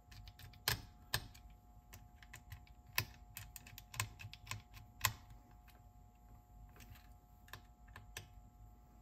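Small, irregular metal clicks and taps of a screwdriver and screws as a cassette deck's head assembly is screwed back into place, with a few sharper clicks in the first five seconds and fewer later.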